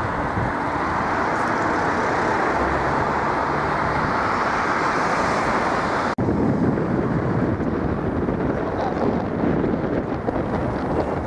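Steady outdoor traffic noise with wind buffeting the microphone, broken by an abrupt cut about six seconds in, after which the noise continues rougher and more uneven.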